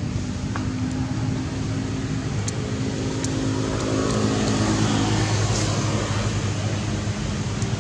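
A motor vehicle's engine running with a low, steady drone, a little louder around the middle and easing near the end.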